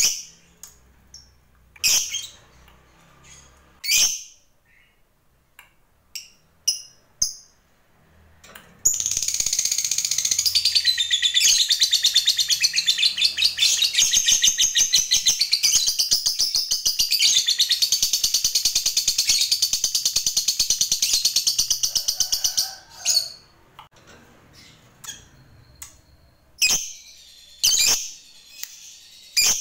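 Lovebird calling: sharp high single chirps every second or two, then about nine seconds in a long, very fast chattering trill ("ngekek panjang") that runs for about thirteen seconds before breaking off, with single chirps again near the end.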